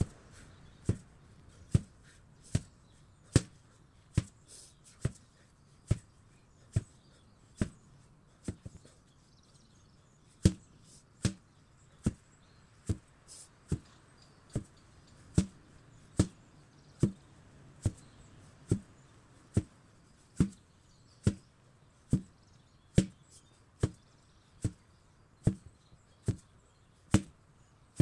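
Repeated blows of an 8 kg sledgehammer, one strike a little under every second in a steady rhythm, with a short pause about nine seconds in before the blows resume.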